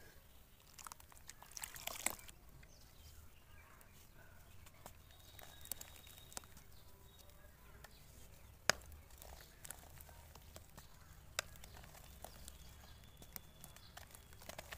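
Dry red dirt broken by hand into a basin of muddy water: faint wet squelching and crumbling, with scattered sharp cracks, a cluster about a second or two in and the sharpest about nine and eleven seconds in.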